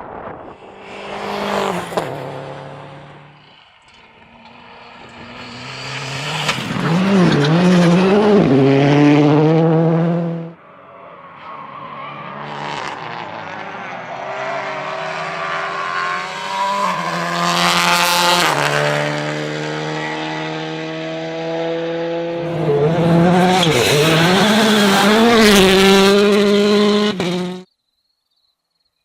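Rally cars at full throttle on a stage, engines revving up and down through gear changes in several loud passes. The sound cuts off suddenly near the end.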